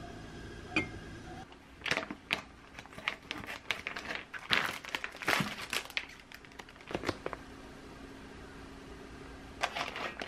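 A light click of a lid set on an enamel pot, then plastic packaging crinkling in quick, irregular bursts for several seconds as a vacuum-sealed food pack is opened and handled. Near the end, more crinkling as a liner sheet is pressed into an air fryer basket.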